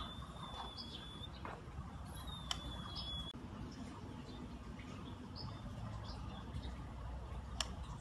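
White-rumped shama (murai batu) giving long, thin, high whistles, one ending about a second in and another about a second long starting two seconds in, with a few short high chirps. A few sharp clicks are also heard.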